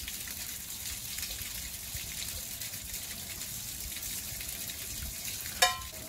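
Steady running water gushing, a continuous even wash of noise, with one short sharp knock with a brief ring near the end.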